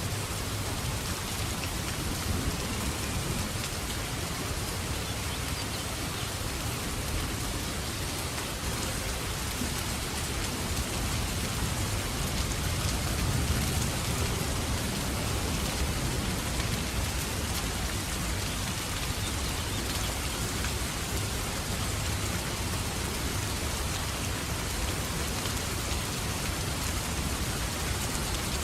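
Steady rain on a surface with a low rumble underneath, mixed with a fireplace crackling.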